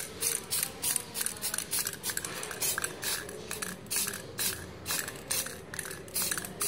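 Aerosol spray can of clear coat hissing in a rapid run of short bursts, about three a second, as it is sprayed in quick taps.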